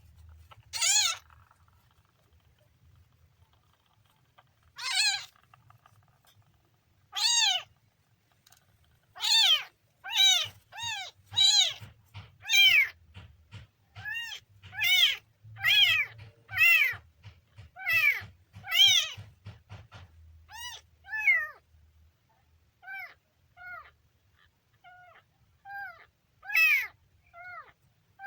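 Kitten meowing over and over in short, high calls: a few spaced calls at first, then a quick run of about one a second, trailing off into fainter calls near the end.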